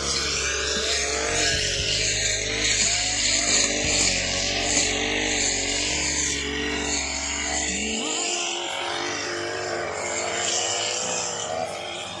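Two-stroke petrol brush cutters running, their engine pitch wavering up and down as the throttle is worked while cutting grass.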